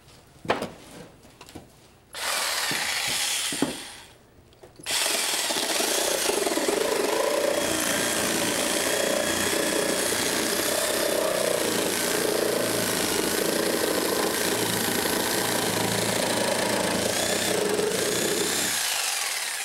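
Reciprocating saw cutting through old wooden framing timber: a short cut of under two seconds, a one-second pause, then one long steady cut that fades out near the end. A few light knocks come before the saw starts.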